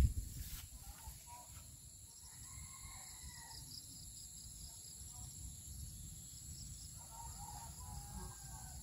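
Steady high-pitched drone of insects such as crickets, with faint scattered bird calls and a low rumble on the microphone. There is a brief low thump right at the start.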